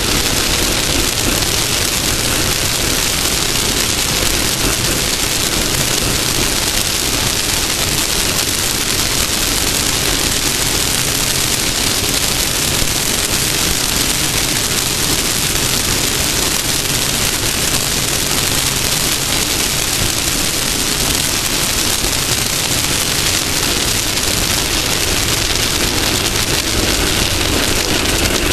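Off-road race car running at speed, its engine a steady drone almost buried under a loud, unbroken rush of wind and terrain noise.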